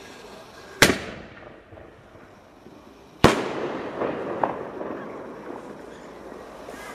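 A firework ball shell from a Spartakus mortar-tube set is fired. The lift charge bangs sharply about a second in, and the shell bursts with a louder bang about two and a half seconds later, leaving a slow fading rumble and a couple of fainter cracks.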